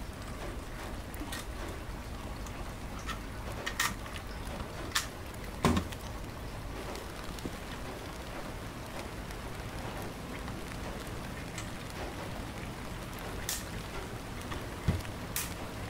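Small metal and plastic parts of a model excavator's bucket linkage clicking and tapping as they are handled and fitted by hand, over a steady hiss. The clicks come singly, a handful of them, the loudest about six seconds in with a dull knock.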